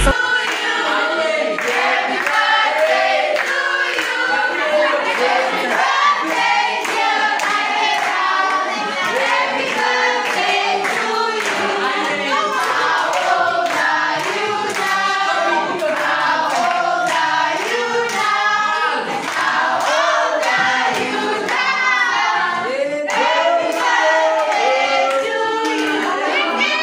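A group of girls singing together in chorus, with steady hand claps keeping the beat.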